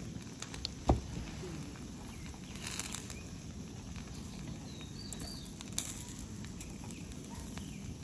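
Sea eel grilling on a mesh grill over a portable butane stove: a steady burner hiss with light sizzling, a sharp click of metal tongs on the grill about a second in and another near the middle, and a few faint bird chirps.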